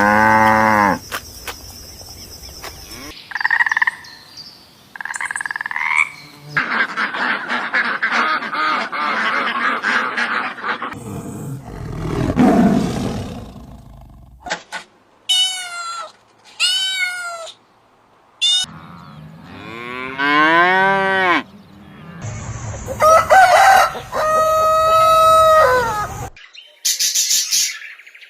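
A quick succession of different animals' calls, each cut short: a moo at the start, then rough pulsing croaks, a low rumbling call, high chirps and several pitched cries and bleats.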